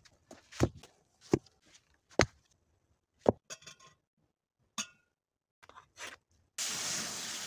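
A string of sharp knocks as rocks are set onto a stone fire ring, then metal clinks from a steel camping kettle and a knife scraping curls of wood. A steady hiss lasts about a second near the end.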